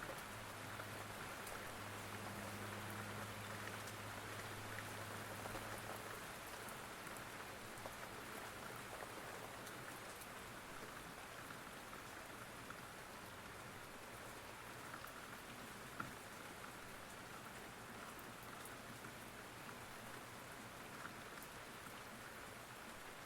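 Steady rain falling, an even hiss, with a low steady hum beneath it during the first few seconds and a single tick about sixteen seconds in.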